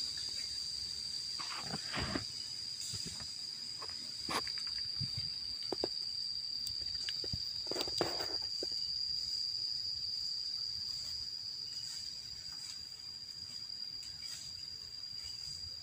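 Forest insects shrilling, one steady high-pitched tone that never lets up, with scattered short knocks and rustles of handling and movement through the bamboo.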